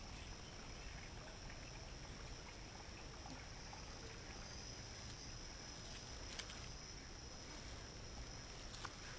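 Quiet forest-trail ambience: a steady high-pitched drone over a faint hiss, with a couple of soft clicks about two-thirds of the way in and near the end.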